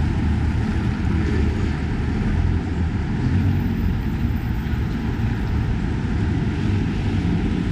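Steady street noise of a busy city avenue, mostly a low traffic rumble with a fainter hiss above it and no single sound standing out.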